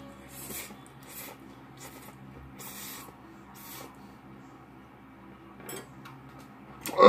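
A person slurping jjajangmyeon (black bean sauce noodles) in a string of short, quick sucks, about one every 0.7 s, then chewing. A brief loud burst right at the end is the loudest sound.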